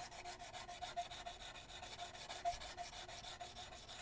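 Crocus cloth wrapped around a file, rubbed back and forth across the steel muzzle faces of side-by-side shotgun barrels in quick, even strokes, several a second. It is the final polishing of muzzles freshly filed flat, which brings them to a shine.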